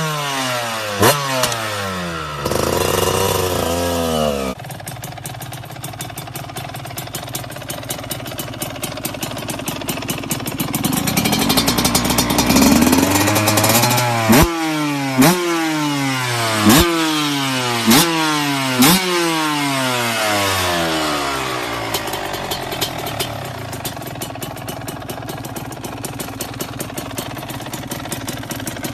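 A 125 cc trail motorcycle engine being revved in short throttle blips, each one sharp at the start and falling back to idle. There is a run of quick blips in the middle and steadier idling near the end.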